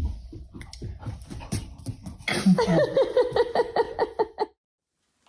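A dog whimpering: a rapid run of short, high whines from about two seconds in, cut off abruptly a couple of seconds later, after a patter of quick ticks and huffs.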